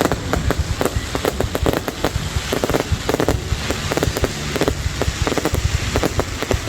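Fireworks going off in a dense, continuous stream of crackling pops and bangs, many each second.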